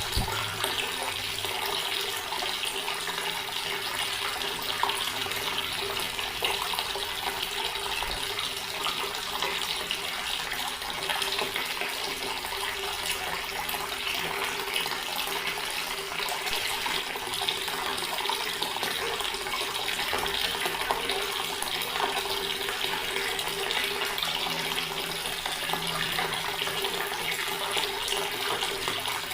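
Water running from a tap into a stone basin: a steady, unbroken splashing flow.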